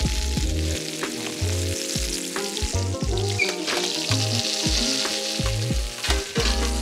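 A ribeye steak and its fat sizzling in a hot metal oven tray set over a frying pan on a gas burner, a steady hiss. Background music with a stepping bass line plays under it, with a few short clicks.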